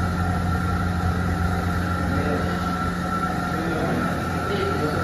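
Steady mechanical hum with a low drone and a few fixed tones, from the gym's running electric fans; it does not change.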